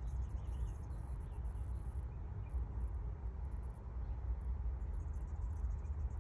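A steady low rumble, with faint high-pitched insect chirping coming and going above it.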